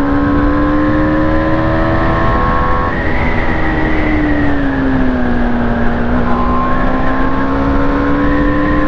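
BMW G310R's 34 hp single-cylinder engine pulling at steady revs while riding, its pitch sagging a little about halfway through and then climbing again. A steady rush of wind noise runs underneath.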